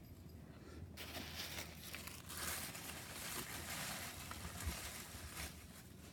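Packaging crinkling and rustling as a separately wrapped air plant is unwrapped, starting about a second in and dying down near the end.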